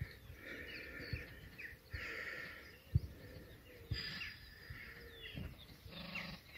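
Small birds chirping and twittering, with a few dull knocks and soft scraping as a hand digging tool works through loose soil. The sharpest knocks come about three and four seconds in.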